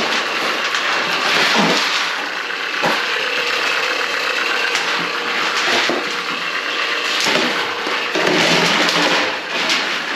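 Motorized drain-cleaning machine running steadily, its spinning cable rattling and knocking in the drain line as it works through a grease clog in a kitchen sink drain.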